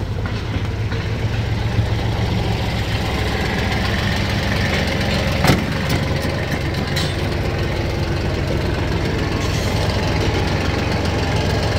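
Kubota compact tractor's diesel engine idling steadily, with one sharp clunk about five and a half seconds in.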